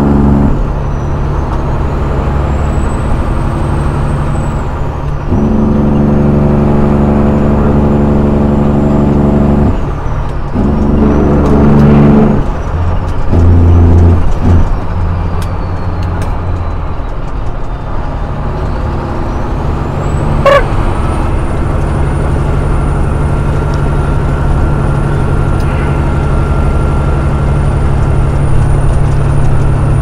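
Semi truck's diesel engine heard from the cab while driving, its droning engine brake cutting in and out in several spells as the truck slows. A single sharp knock sounds about two-thirds of the way through.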